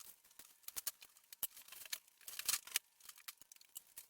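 A shipping box being opened by hand: an irregular run of quiet clicks, snips and crackles of packaging being cut and handled.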